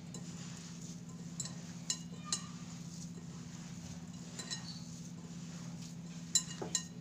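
Hands kneading a boiled chicken and potato mixture in a glass bowl, with several light clinks as fingers and a ring knock the glass, over a steady low hum.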